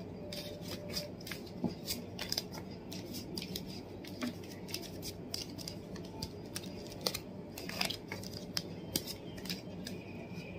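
Tarot cards being gathered up and handled on a table: a run of irregular light clicks and slides of card against card.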